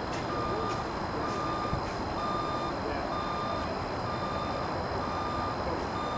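Hi-rail maintenance truck's reversing alarm beeping about once a second, each beep a steady high tone about half a second long, as the truck backs along the track. A steady low rumble runs beneath the beeps.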